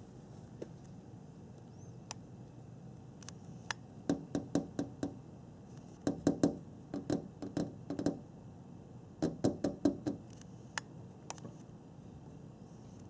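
A raccoon eating dry cat food from metal bowls, its chewing making quick runs of crunches, about five a second, with pauses between runs and a few single sharp clicks.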